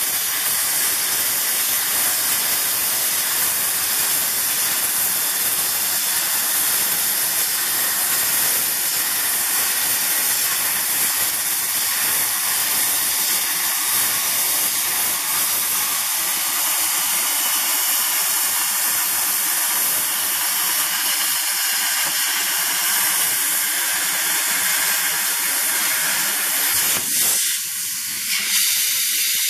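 Hypertherm Powermax45 plasma torch on a CNC table cutting 5/16-inch steel plate: a steady, loud hissing roar of the plasma arc and compressed air. Near the end the arc goes out and the cutting noise drops to a thinner air hiss.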